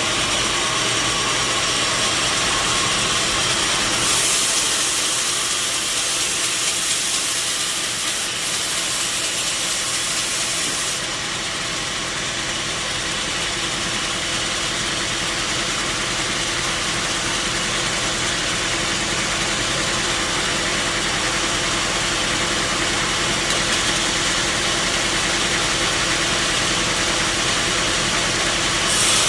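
Sawmill machinery running steadily with a constant engine-like hum. A bright hiss comes in about four seconds in and drops back about eleven seconds in.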